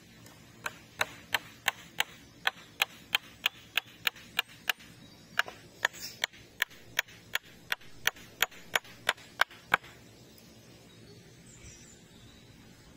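A hand tool striking wood in quick, evenly paced blows, about three a second, some two dozen in all, with a short pause about five seconds in. The blows stop about ten seconds in.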